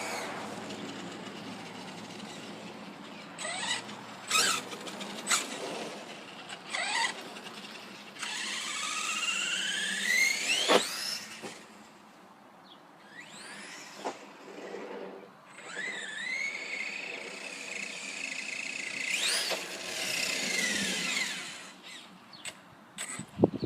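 Electric motor of a Redcat Earthquake 8E radio-controlled monster truck whining as it accelerates, its pitch rising in long sweeps several times. Sharp knocks and clatters come in between the sweeps.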